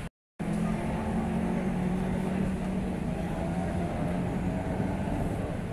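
A steady low engine hum, like a motor running at a constant speed, over outdoor background noise. It follows a brief dropout at the very start.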